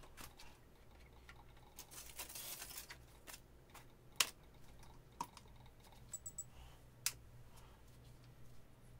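Aluminium foil crinkling as it is pulled off a boiling flask and set down, followed by three sharp clicks, over a low steady hum.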